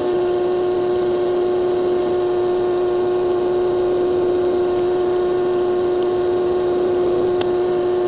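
Benchtop drill press running, a steady motor hum held at one pitch while a centering bit spots pilot holes in a metal plate. One faint click comes near the end.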